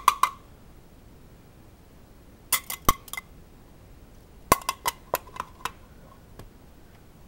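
Light clinking, like glass or china tapping, in three quick runs of sharp clicks that each ring briefly: one at the very start, one about two and a half seconds in, and a longer one around four and a half to six seconds in.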